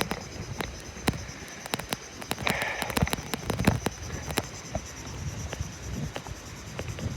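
Outdoor ambience of a steady high insect drone, with irregular clicks and knocks, like footsteps moving over debris.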